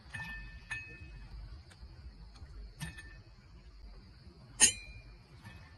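Tableware clinking: about five short clinks that ring on briefly, the loudest about four and a half seconds in, over a faint steady high-pitched whine.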